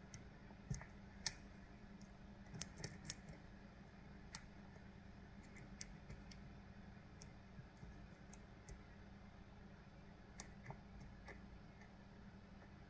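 Faint, irregular small clicks of a lock pick working the pins inside a Kale Kilit 164 BNE lock cylinder, bunched in the first few seconds with a few more near the end, over a low steady hum.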